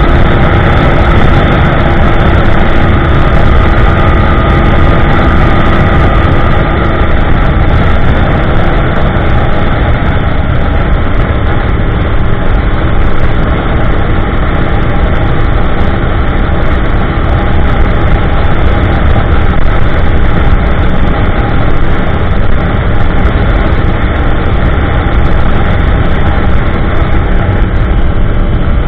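A 2015 Yamaha YZF-R1M's crossplane inline-four running at steady highway cruise through an Akrapovic slip-on exhaust with an MJS link pipe on the factory headers. Wind rushes over the bike-mounted microphone. The engine note shifts about seven seconds in.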